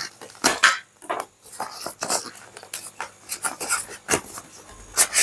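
Plastic packaging crinkling and rustling in the hands as a boxed power strip is worked out of its bag, in quick irregular crackles.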